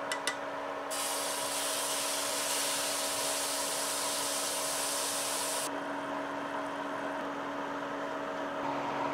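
Water flicked onto a hot PTC-heated steel pan, sizzling in a loud steady hiss that starts about a second in, after a couple of sharp clicks. A little past halfway the hiss drops to a quieter frying sizzle, as eggs cook in the pan, with a steady low hum underneath.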